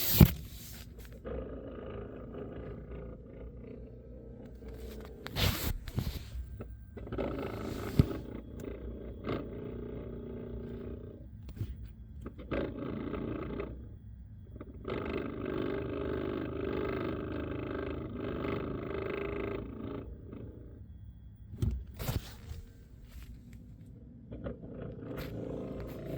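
2025 Ram RHO brake system groaning as the brake pedal is pushed with the truck in park: several drawn-out moaning tones of a few seconds each, with sharp clicks between them. It is an abnormal noise that the owner is recording.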